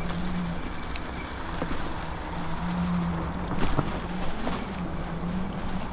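Electric e-bike hub motor humming steadily under power, louder and softer as the throttle changes, over tyre and wind rumble on a rough trail. A few sharp knocks come from the bike going over bumps, the loudest a little over halfway through.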